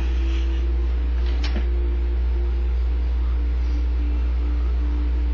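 A desktop computer running, a steady low hum with a faint wavering tone above it; a light click about a second and a half in.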